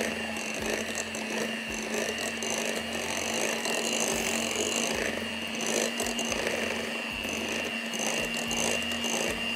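Electric hand mixer running at a steady speed with an even whine, its beaters churning a thick cream cheese mixture in a glass bowl.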